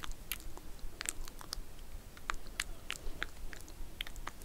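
Close-miked soft clicks and crackles, irregular, a few a second, as in an ASMR trigger.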